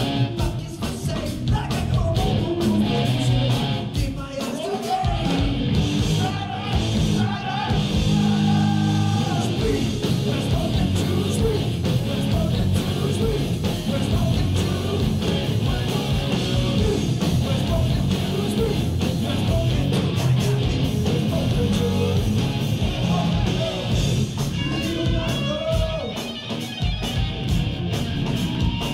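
Live heavy metal band playing: distorted electric guitars, bass guitar and a drum kit at full volume, heard from the audience.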